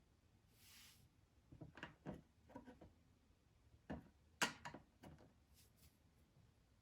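A few light clicks and knocks, like small hard objects being handled, in two loose clusters, with the sharpest knock about four and a half seconds in.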